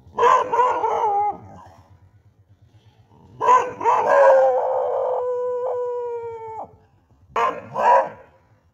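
Dogs howling: a short wavering howl at the start, then a long howl of about three seconds that sinks slightly in pitch, followed near the end by two short barks.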